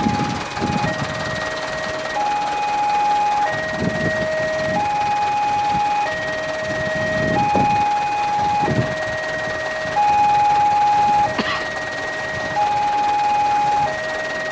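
Railway level-crossing warning alarm sounding with the barrier down: two tones, a higher and a lower, alternating about once a second and repeating steadily. Low rumbles sit underneath, and there is one sharp click near the end.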